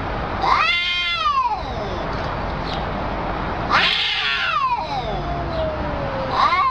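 Two cats caterwauling at each other in a standoff: long, wavering threat yowls that rise and fall in pitch. One comes about half a second in, a longer one about four seconds in slides down in pitch, and another begins near the end.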